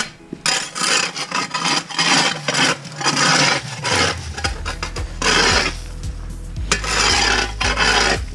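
Snow shovel scraping wet snow and ice off a concrete walkway in a series of strokes, about one a second, clearing the icy path so it isn't slippery.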